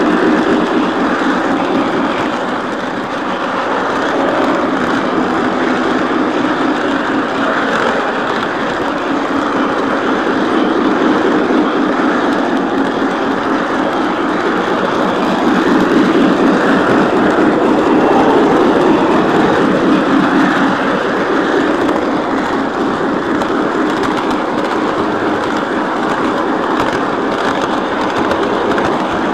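Lionel O-scale model train running steadily along its track, its wheels rattling over the rails, swelling slightly louder partway through.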